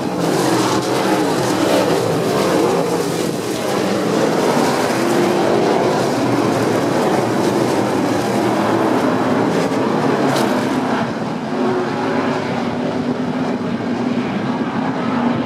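A pack of IMCA Stock Cars' V8 engines racing around the track, several engine notes overlapping and rising and falling as the cars pass.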